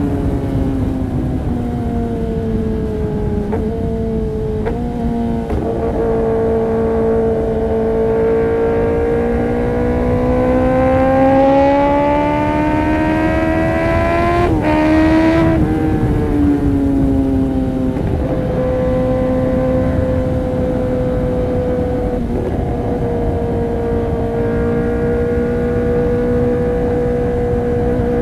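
Kawasaki ZX-10R inline-four through an Arrow Pro-Race competition exhaust, running continuously at high revs. The note dips early on, climbs gradually for several seconds, then drops and holds steady. A few short sharp breaks cut into it about five and fourteen seconds in.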